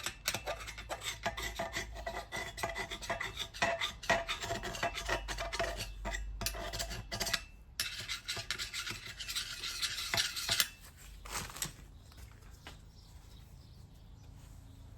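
Metal turbocharger parts being handled and fitted together: many quick clinks and scrapes, then a steady scraping for about two and a half seconds from around eight seconds in. It goes quieter after that.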